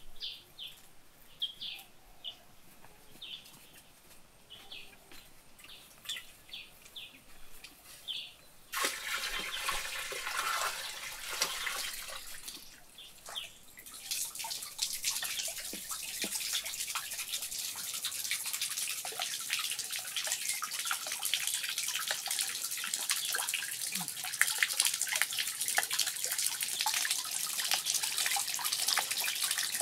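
Birds chirping in short repeated calls, then from about nine seconds in water splashing and pouring steadily from a bamboo spout into a stone-lined pond. The water is the louder of the two.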